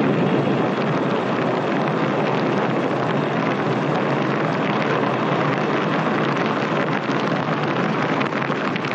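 Gasoline vapour from an open pan of fuel igniting with a sudden whoosh, then the flames burning with a steady, dense rushing noise.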